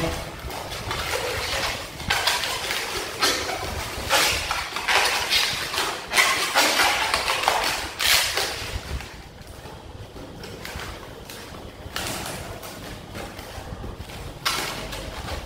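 Latex modelling balloons being twisted and handled: irregular squeaks and rubbing of the latex, quieter for a few seconds in the middle.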